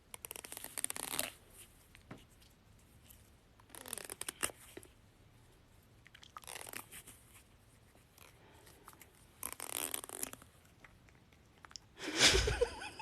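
A fingertip scraped along the teeth of a comb, four short rasping strokes a few seconds apart, each a fast run of tiny clicks: the sound said to make cats gag. A louder, fuller noise comes near the end.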